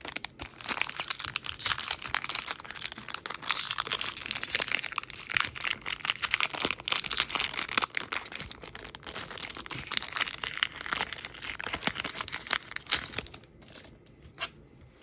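Foil wrapper of a Pokémon booster pack being torn open and crinkled by hand: a dense, crackling rustle with many small snaps, which stops a little before the end.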